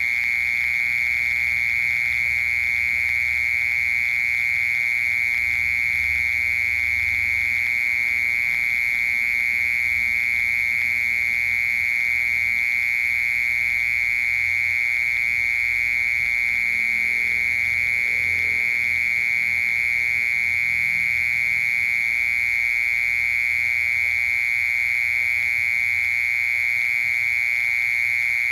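Cricket singing a loud, continuous high trill that holds steady in pitch and level without a break.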